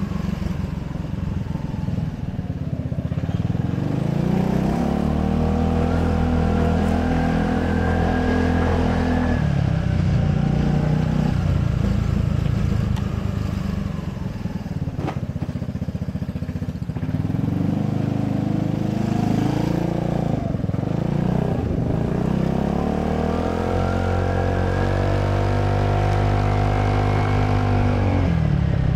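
Gilera Runner VXR 200 scooter's single-cylinder four-stroke engine under throttle, its pitch rising as it picks up speed and then holding steady, twice. In between it eases off to a low run.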